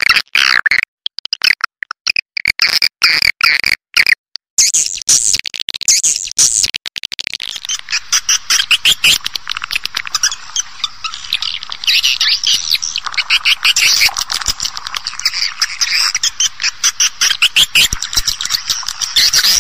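Swiftlet call lure sound of edible-nest swiftlets, as played to draw birds into a swiftlet house: dense, rapid twittering chirps and clicks. It is broken by short gaps for the first few seconds, then runs continuously.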